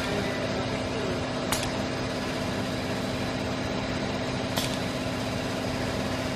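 Steady machine hum with a sharp click twice, about three seconds apart, from a SCARA soldering robot running its cycle.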